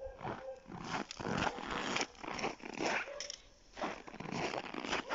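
Footsteps on packed snow: a string of irregular crunches.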